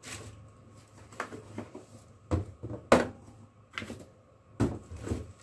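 Packaging and a pair of shoes being handled while unboxed: an irregular run of sharp knocks and rustles, the loudest about three seconds in.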